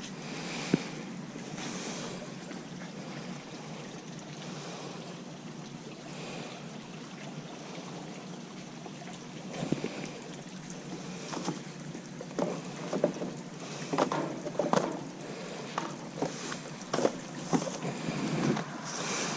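Wind buffeting the microphone, a steady rushing noise, with scattered knocks and clicks through the second half.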